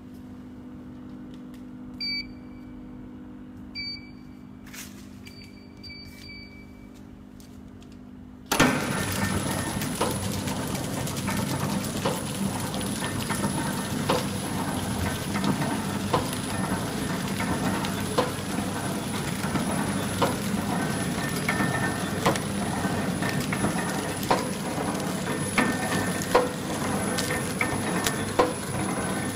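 Several short electronic beeps from the touchscreen control panel over a low hum, then a down-paper horizontal flow-wrap packing machine starts suddenly about nine seconds in. It runs on with a steady mechanical clatter and regular sharp clicks as it wraps the sweets.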